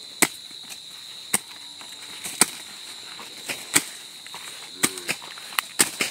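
Dao (chopping blade) striking and cutting woody okra stalks at the base: about eight sharp chops, roughly a second apart at first and quicker near the end. Behind them is a steady, high-pitched insect trill.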